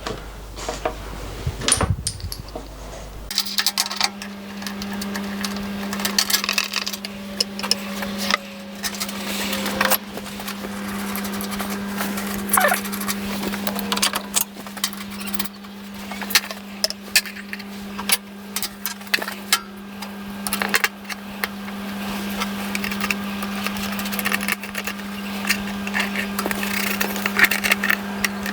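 Metal clinks and knocks of clamps, packing and hand tools being handled on a milling machine table while a door is clamped down. From about three seconds in, a steady low machine hum runs under them.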